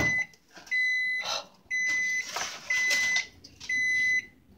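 Microwave oven beeping: five high, steady beeps about half a second long, one a second. A click at the start and the rustle of the dish being handled come between the beeps.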